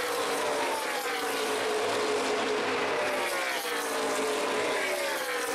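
NASCAR Nationwide stock cars' V8 engines running past at caution pace, a steady drone with several drawn-out passes in which the engine pitch falls as each car goes by.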